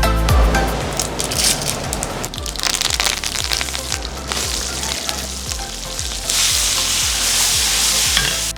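Food sizzling as it fries in hot oil, the hiss growing louder about six seconds in, over background music with a steady beat.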